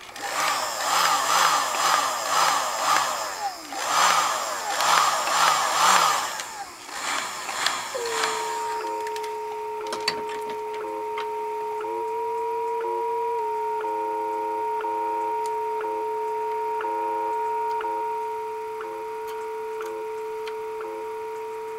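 Drake 1A receiver's audio output: for about seven seconds, loud pulsing static and warbling noise come in several swells as the tuning is tweaked. Then it settles on a steady tone with faint ticks about once a second, the WWV time signal received again now the crystal oscillator is working. The tone's pitch steps slightly as the tuning is adjusted.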